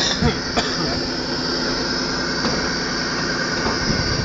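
Engine running steadily, with a high whine over the drone. Two sharp clicks come in the first second.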